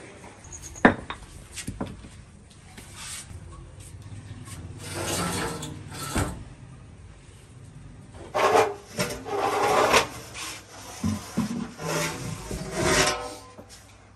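Rasping scrapes and rubbing in uneven bursts, with a few sharp knocks about a second in: cooking vessels being handled and scraped, including a large clay pot worked from the inside.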